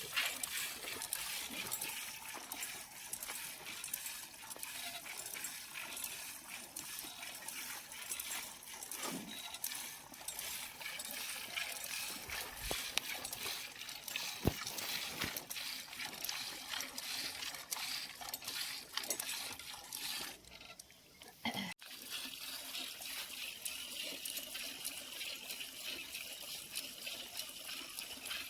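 Running water splashing and trickling steadily, with a brief dip and a break about 21 seconds in.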